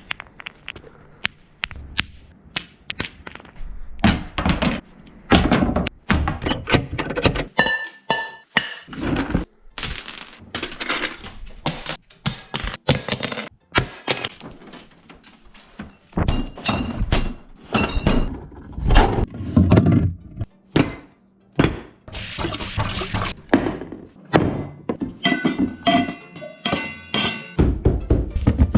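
A long run of loud, irregular bangs, thuds and crashes, some with a short ringing after the hit, with music playing underneath.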